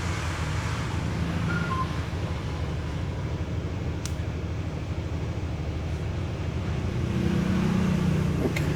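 Steady low mechanical hum with a faint hiss, and a single sharp click about four seconds in.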